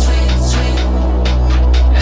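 Electronic background music with heavy sustained bass and a steady beat.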